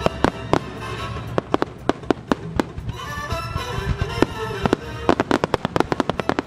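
Aerial firework shells bursting one after another in sharp bangs, with a dense run of reports about five to six seconds in, over music playing along with the display.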